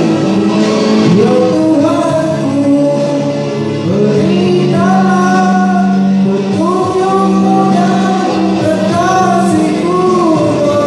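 A sung melody over a karaoke backing track: a singer holds and bends notes over steady instrumental accompaniment.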